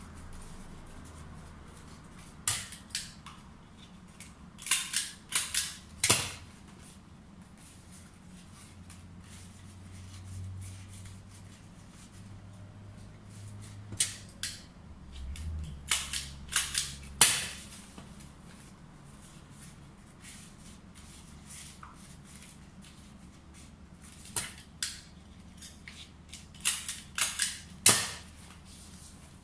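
Crisp, sharp clicks and snaps in four short flurries of two to six each, from stiff tropical leaves being rolled, looped and shaped by hand. A faint low hum lies underneath.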